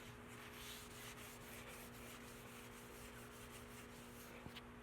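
Near silence: faint room tone with a steady low electrical hum, and a faint tick near the end.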